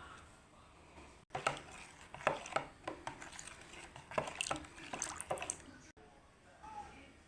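Kitchen work sounds: a run of sharp clinks and knocks of utensils against dishes, with liquid sounds, starting and stopping abruptly at two edits.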